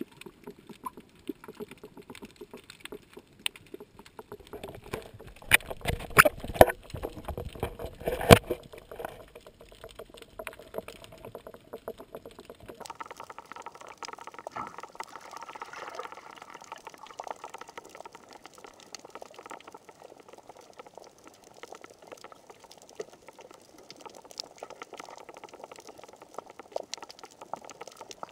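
Underwater sound picked up through a GoPro's waterproof housing: a dense crackling haze of clicks and water noise, with a cluster of loud knocks and bubbly surges several seconds in. The sound changes abruptly about halfway through and settles into a steadier, thinner crackle.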